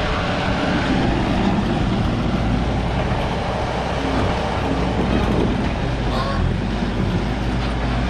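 Case TV450 skid steer's diesel engine running steadily, a continuous low hum under a steady mechanical noise.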